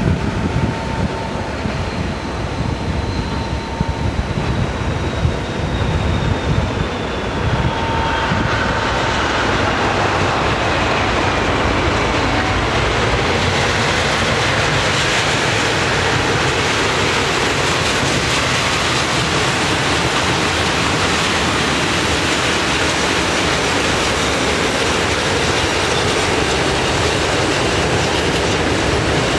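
Voith Maxima diesel locomotive approaching and passing, with a whine that slowly falls in pitch. About 8 seconds in, its freight train of tank wagons and covered wagons begins rolling past, loud and steady, with wheels clacking on the rails.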